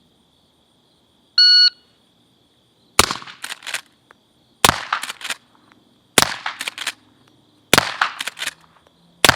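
A shot-timer start beep, then five suppressed .44 Special shots from a Marlin 1894 lever-action carbine fitted with a Griffin Armament Resistance 45 suppressor. The shots come about a second and a half apart, and each is followed by a quick metallic clatter as the lever is cycled to chamber the next round.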